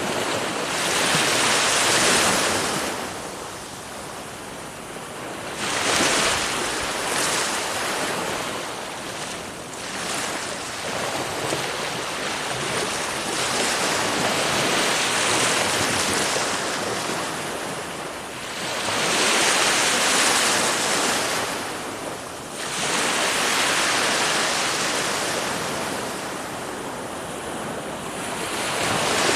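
Ocean waves breaking and washing in, surging in loudness every few seconds, with some wind on the microphone.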